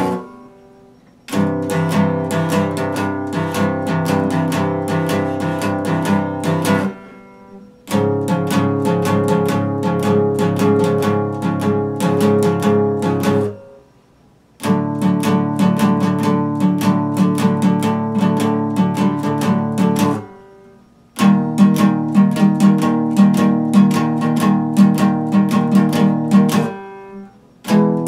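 Epiphone acoustic guitar played in repeated chord phrases of about six seconds, each broken off by a brief pause of about a second.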